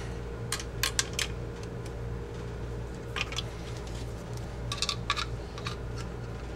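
Scattered sharp metallic clicks and taps as small parts, bolts and a screwdriver are handled on a Saiga 12 shotgun during assembly. They come in little clusters about half a second in, around three seconds and around five seconds, over a steady low hum.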